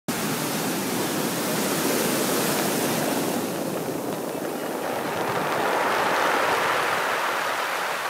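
Ocean waves washing up a steep pebble beach with a steady hiss, the water then draining back down through the stones. The sound is brightest at first and turns lower and fuller about halfway through.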